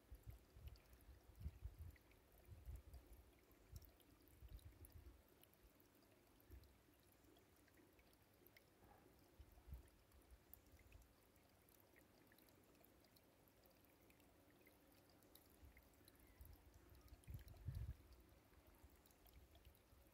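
Near silence, with faint irregular low rumbles and thumps on the microphone, several in the first few seconds and a louder cluster near the end.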